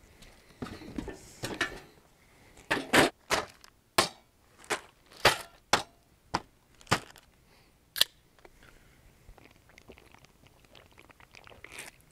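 Camp gear and food being set down on a folding table: about a dozen sharp knocks and clacks of plastic, metal and glass, irregularly spaced, between about three and eight seconds in.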